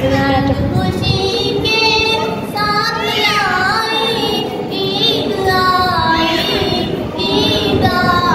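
A woman singing a naat, Islamic devotional verse in praise of the Prophet, solo in long melodic phrases with held, wavering notes.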